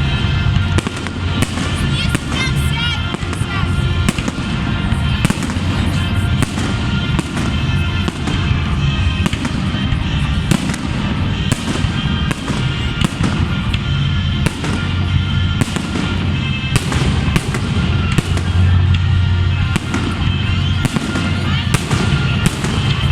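Fireworks display: bangs and crackling bursts in quick, continuous succession, over music.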